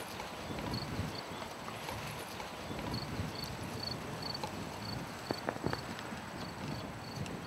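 Outdoor field ambience: an insect chirps in short, high pulses, two or three a second, over an irregular low rumble and knocking. A few sharp clicks come a little past the middle.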